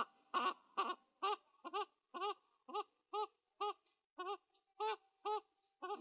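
Black-crowned night heron calling: a steady series of short calls, about two a second, each rising and falling slightly in pitch.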